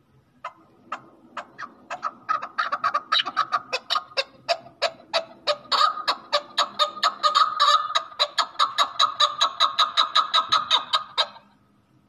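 Chukar partridge calling: a run of short clucking notes that starts slowly, speeds up to about four or five a second as it grows louder, and stops about eleven seconds in. This is the chukar's accelerating 'chuck-chuck-chukar' rally call.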